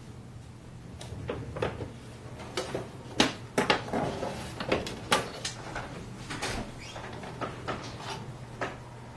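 The lid and case of a Philips GF 110 portable record player being fitted together and handled: a run of irregular hard plastic clicks and knocks, the loudest a little past three seconds in and again about five seconds in.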